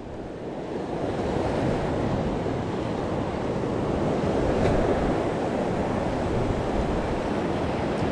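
Sea waves breaking and washing over a rocky shoreline: a steady rush of surf that swells a little midway.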